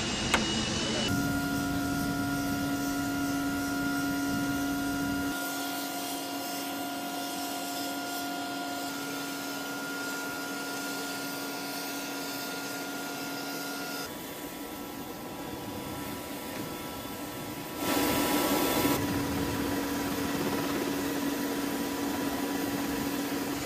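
Steady high whine of an HH-60 Pave Hawk helicopter's turbine machinery on the ground, with a brief louder rushing surge about 18 seconds in.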